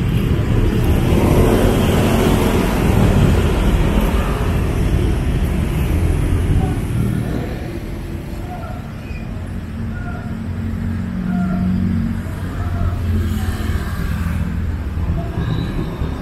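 Road traffic: a vehicle passes close, its noise swelling over the first few seconds and easing off after about seven. After that comes a lower, steady engine hum.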